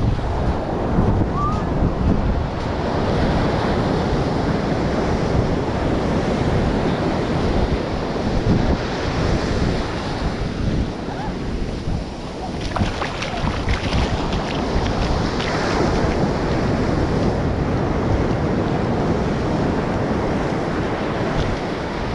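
Ocean surf washing onto a sandy beach, a steady rush of breaking waves, with wind buffeting the microphone.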